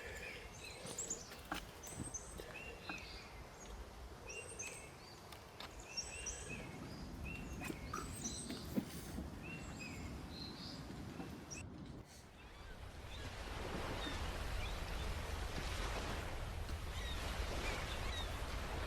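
Small birds chirping in short repeated calls, with a few soft clicks and knocks. About twelve seconds in, the sound cuts to a louder, steady rushing noise with faint bird calls still over it.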